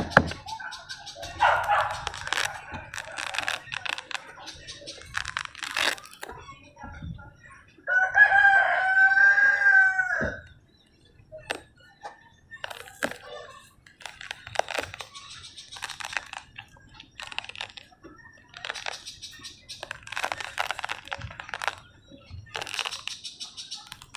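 A rooster crows once, a single call lasting about two seconds near the middle, the loudest sound here. Around it come short rustling, tearing bursts from the thick rind and pith of a pomelo being peeled apart by hand.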